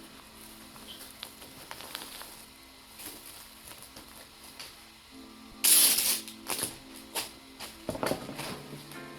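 Faint background music with scattered clicks and crackling handling noises. A short, loud hissing rasp comes a little past halfway, followed by a run of sharp clicks and crackles.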